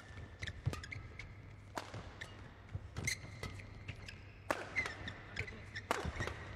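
Badminton doubles rally: rackets striking the shuttlecock in a fast exchange, sharp hits coming roughly once a second at an uneven pace.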